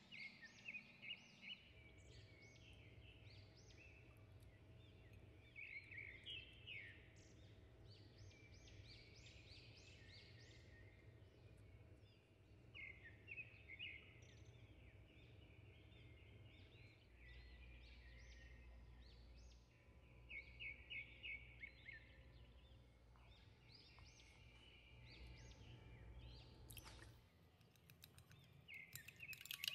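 Faint birdsong: bird chirps and twitters in short repeated trills, over a low steady hum. Near the end a metal spoon starts clinking quickly against a bowl as an egg is beaten.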